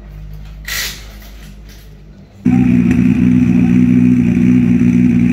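A faint hum with a brief hiss about a second in, then a loud, steady engine drone at an unchanging speed that starts abruptly about two and a half seconds in.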